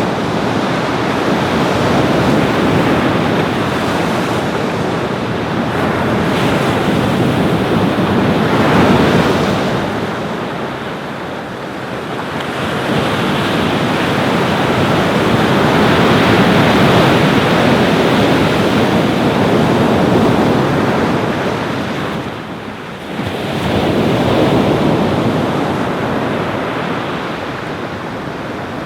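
Ocean waves breaking on a beach, a continuous hiss of surf that swells and ebbs slowly, about once every eight seconds.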